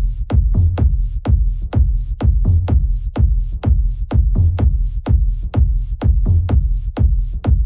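Techno music: a fast, even electronic beat over a heavy, steady bass line.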